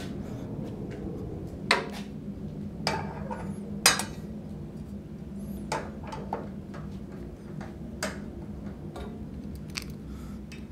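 Irregular metallic clinks and knocks of a circular saw blade and arbor hardware being fitted onto a 1954 Shopsmith Mark V's spindle and tightened with a wrench; the sharpest clink comes about four seconds in.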